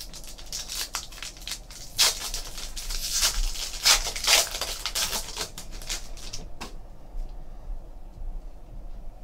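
Foil trading card pack torn open by hand: crinkling and tearing of the foil wrapper, loudest from about two to four and a half seconds in, then quieter.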